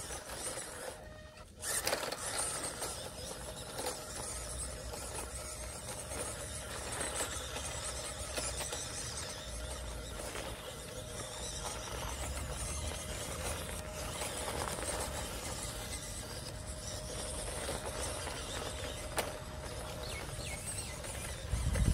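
Electric motor and gearbox of a 1/18-scale RC crawler truck whining steadily as it crawls over loose rocks, coming in about two seconds in.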